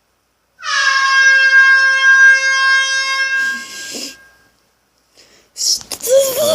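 A noisemaker giving a loud, steady reedy tone held for nearly three seconds: the annoying noise he keeps telling to stop. A burst of noise follows, and near the end there is a short wavering sound.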